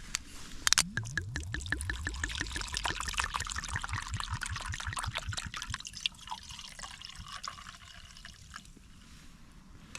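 Liquid being poured into a container: a quick run of glugs at first, then a steadier trickle that tapers off about six seconds in.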